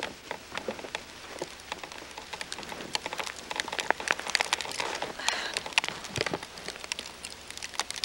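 Wind-driven snow in a blizzard pelting the camcorder: dense, irregular ticking and crackling over a steady hiss.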